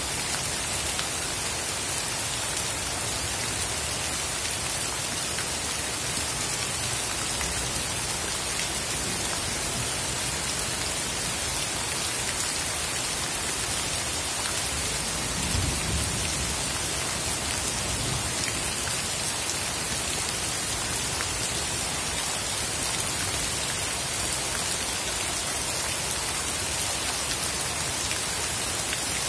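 Heavy rain falling steadily onto a flooded garden path, drops striking the standing water in a continuous hiss, with a brief low rumble about halfway through.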